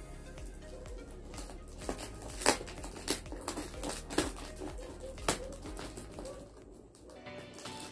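Scissors cutting through packing tape and plastic wrapping on a cardboard box: crinkling plastic with a handful of sharp snips.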